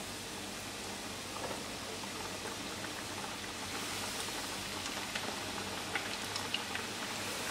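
Flour-coated chicken wings frying in hot oil in a pan: a steady bubbling sizzle with scattered sharp pops and crackles, a little busier in the second half as more pieces go in.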